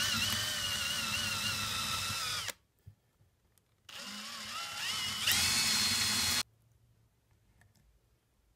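Power drill with a thin twist bit boring into the broken-off wooden tenon stub inside a chair leg's mortise, in two runs of a couple of seconds each with a short stop between. The second run speeds up to a higher, louder whine before the drill stops about six and a half seconds in, leaving only faint clicks.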